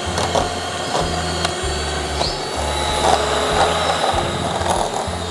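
Electric hand mixer running steadily with a motor whine, its beaters whisking softened butter in a glass bowl.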